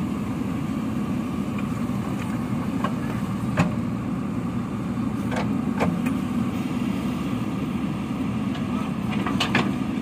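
JCB 3CX backhoe loader's diesel engine running steadily under load as the backhoe arm dumps gravel and swings back to the pile. A few sharp clanks cut through it: one a few seconds in, two more about halfway, and a close pair near the end.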